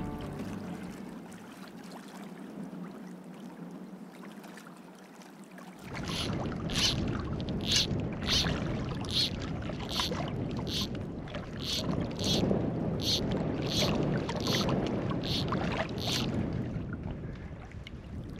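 Background music fades out over the first seconds. Then wind and water noise comes in, with a regular swishing stroke about every three-quarters of a second for some ten seconds.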